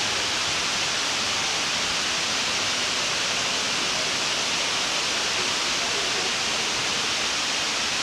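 Water curtain falling down a four-storey cylindrical wall into a pool: a steady, even rushing hiss of falling water.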